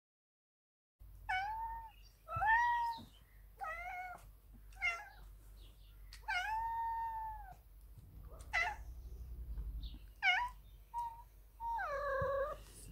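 Ragdoll cat meowing insistently for attention and cuddles: about nine meows in a row, some short and clipped, some drawn out, the last one falling in pitch.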